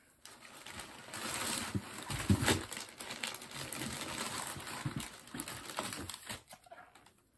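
Brown packing paper rustling and crinkling inside a cardboard box as hands dig through it, with a louder crumple about two and a half seconds in; the rustling dies away near the end.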